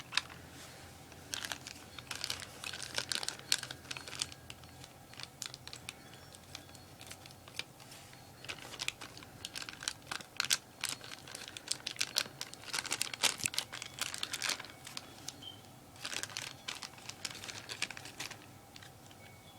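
Plastic and paper toy packaging crinkling and rustling in irregular bursts as it is handled and opened by hand.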